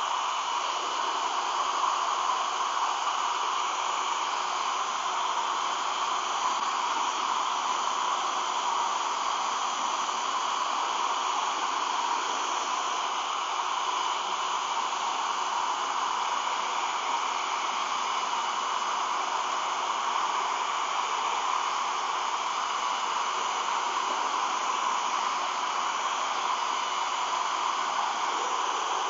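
Hair dryer running steadily, a constant rush of blown air with a faint steady whine from its motor, heating clear vinyl film to soften it so it stretches over a lens.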